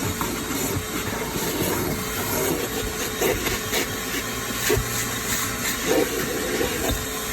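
Ridgid WD0319 cordless wet/dry vacuum running steadily, a constant rushing hiss of air with a faint motor whine, with scattered knocks and rattles as the nozzle works over the car's floor carpet.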